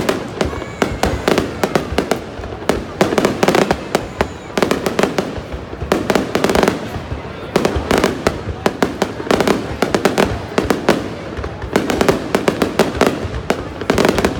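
Fireworks display: a rapid, unbroken barrage of aerial shells bursting and crackling, many sharp reports a second, swelling and easing in loudness.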